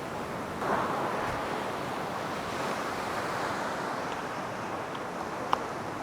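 Sea waves washing onto the shore: a steady rushing hiss that swells about a second in, with a small click near the end.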